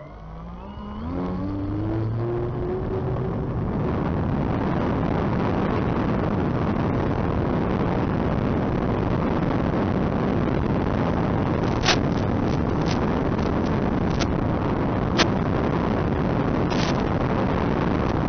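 Twin motors of an RC P-38 model airplane spooling up with a rising whine for takeoff, then running at full throttle under a steady rush of noise in flight. A few sharp clicks come in the second half.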